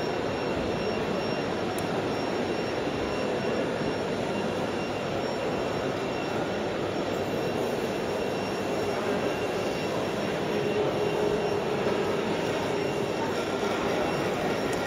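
Steady background din of a model show hall, with a few faint, steady high whines over it and no single sound standing out.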